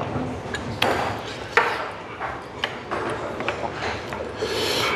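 Metal spoons and chopsticks clinking against stainless rice bowls and dishes during a meal: a handful of sharp, separate clinks, the loudest about a second and a half in.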